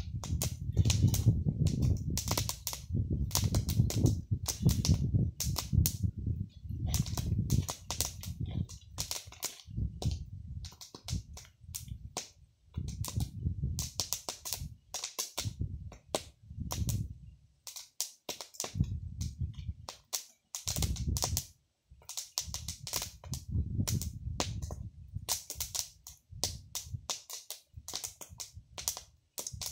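Open wood fire crackling, with many irregular sharp pops and snaps, over a low rumble that comes and goes.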